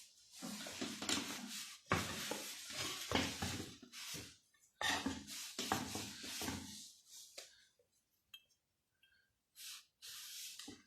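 A CG 125 motorcycle's metal rear hub being scrubbed and rubbed clean, with light metallic clinks as it is handled. There are two long stretches of scrubbing, then a quieter spell with a few clicks and a short last burst of rubbing near the end.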